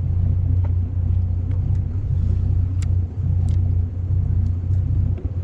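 Boat engine running steadily, a low, even drone with a few brief dips, and faint scattered ticks above it.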